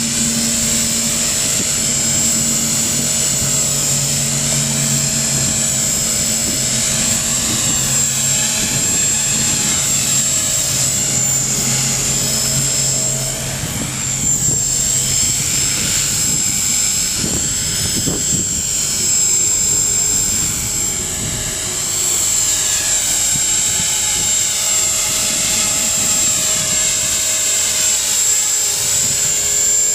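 A 450-size electric RC helicopter, a T-Rex 450 clone, flying: a steady high whine from its motor and drivetrain mixed with rotor noise. The pitch wavers up and down slowly as the helicopter manoeuvres.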